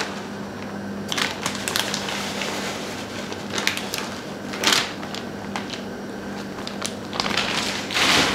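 Plastic bag of shredded cheese crinkling as it is handled and shaken, in a series of short rustles, the loudest near the end. A steady low hum runs underneath.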